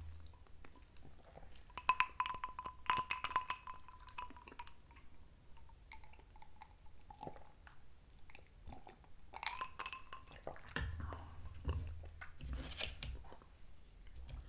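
Close-up eating sounds: chewing with wet mouth clicks, a glass clinking and sips of a drink about two thirds of the way through, and a fork scraping a plate near the end.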